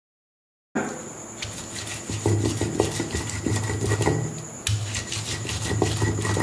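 Stone roller of a hand grinding stone (ammikkal) rolled and rubbed back and forth over onion pieces on the flat stone slab, crushing them. The sound is a gritty scraping with many short knocks, starting about a second in after a moment of dead silence.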